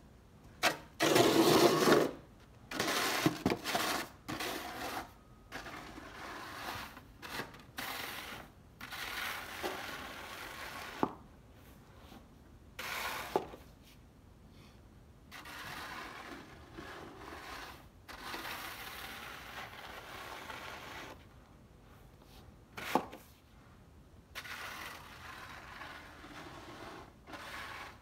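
Snow shovel scraping over ice pellets and packed snow in repeated strokes, loudest in the first couple of seconds, with a few sharp knocks of the blade.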